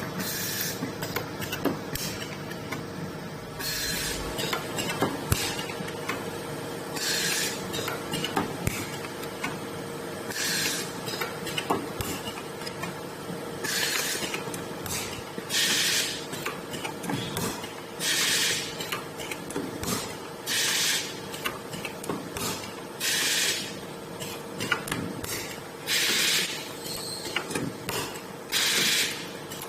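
CNC stud welding machine running through its cycle: a steady hum with scattered clicks of the moving mechanism, broken every two to three seconds by a short hissing burst, about ten in all.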